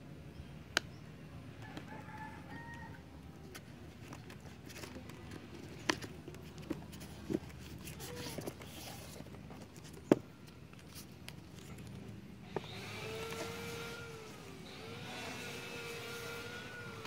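A rooster crowing twice in long, drawn-out calls near the end, with a fainter call about two seconds in. Earlier there are a few sharp taps and knocks from tire rubber being handled on the work table, the loudest about ten seconds in.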